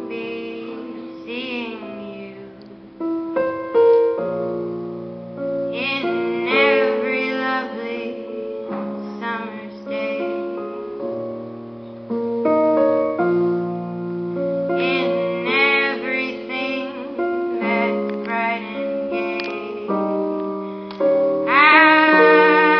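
A female solo singer singing into a microphone over piano accompaniment, ending on a loud, long held note with vibrato near the end.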